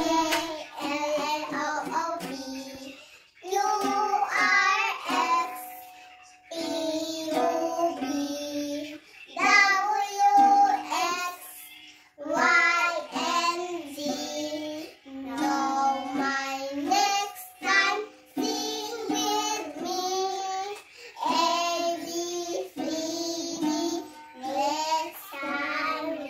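A young girl singing a song in phrases with short breaks, to her own light strumming on a small ukulele.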